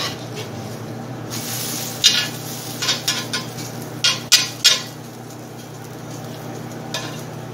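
Metal spatula scraping and clacking against a skillet as a pancake is flipped and pressed, a string of sharp clacks between about two and five seconds in. Before them comes a brief sizzle from the pancake frying in butter.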